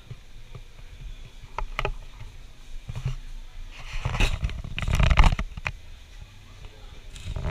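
Scattered clicks and taps of a spray-paint artist's hand tools and cans on the painting board. About halfway through comes a louder rushing noise with a low rumble, lasting over a second.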